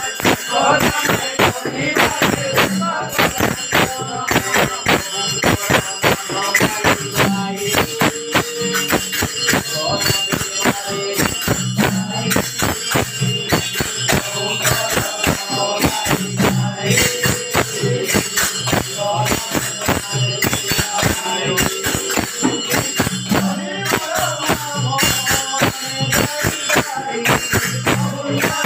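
Odia namasankirtana: a group of men chanting a devotional refrain together over fast, steady clashing of hand cymbals and drum strokes.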